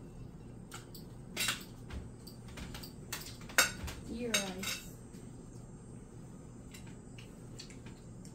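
Metal utensils clinking and knocking against dishes, in scattered irregular strikes, the loudest about three and a half seconds in.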